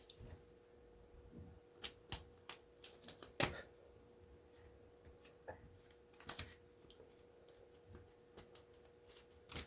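Irregular small clicks and snaps of copper wire being pulled loose and snipped by hand, the loudest about three and a half seconds in, over a faint steady hum.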